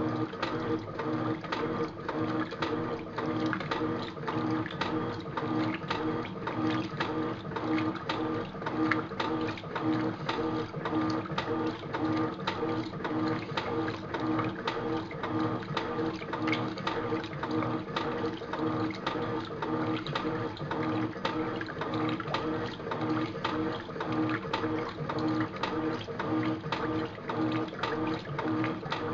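Electrolux top-loading washing machine agitating a load in the wash cycle: a steady motor hum with water churning and rapid, irregular knocking. The machine's bearings are blown.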